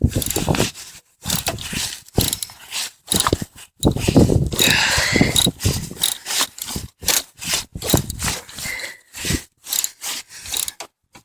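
Irregular metallic clicking and scraping of hand tools on a battery's terminal clamps and bolts as they are worked loose. The clamps are heavily corroded and stuck on the posts.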